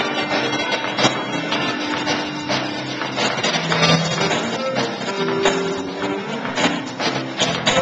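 A live band playing loud music, with guitar and percussion hits.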